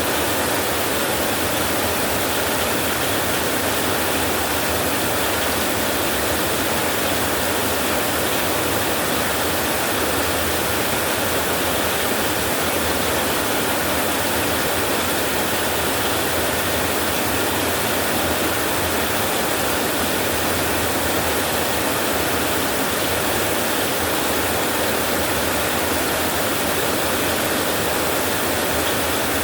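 Rain falling on a tin roof, a steady, unbroken hiss with no thunder claps.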